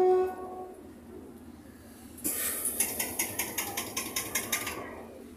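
Passenger train pulling slowly out of a station. A short steady tone fades out in the first moment, then a fast, even run of sharp high-pitched clicks and rattling, about six a second, lasts roughly two and a half seconds before it dies away.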